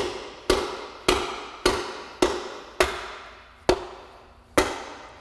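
A mallet striking the body of a Saginaw power steering pump eight times, about one blow every half second and a little slower near the end, each with a brief metallic ring. The blows are seating the pump's internals back into the housing during reassembly.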